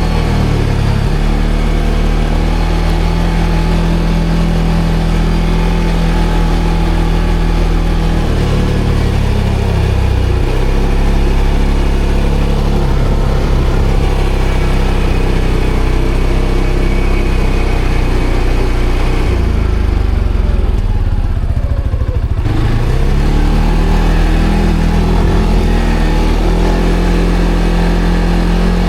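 ATV engine running while being ridden, its pitch shifting about eight seconds in. Around twenty seconds in the sound goes duller for a couple of seconds, then the engine climbs back to a steady speed.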